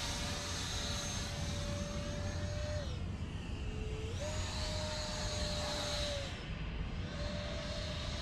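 Electric motor of a 3D-printed RC Mirage 2000 jet whining steadily in flight, with a low rumble under it. The pitch drops about three seconds in as the throttle is eased and comes back up a second later, then dips and recovers once more near the end.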